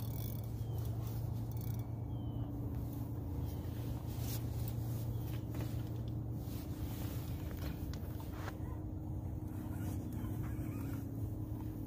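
A steady low mechanical hum with a couple of steady tones, and a few faint knocks.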